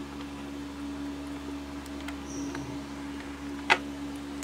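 Steady low background hum with a single sharp click about three and a half seconds in, from handling a box vape mod.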